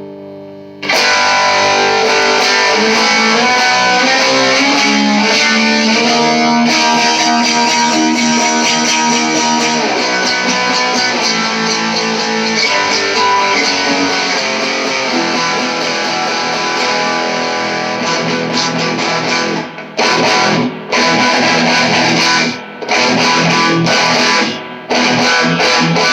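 Electric guitar on its bridge pickup through a small all-tube amp, the tone control turned fully up, played with an overdriven hard punk and rock sound. A ringing note dies away, then about a second in come steady strummed chords and riffs. After about twenty seconds the playing turns to short chord stabs with brief muted gaps between them.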